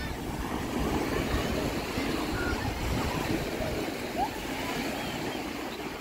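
Small sea waves washing and fizzing up a sandy shore, with a low rumble of wind on the microphone and faint voices of people nearby.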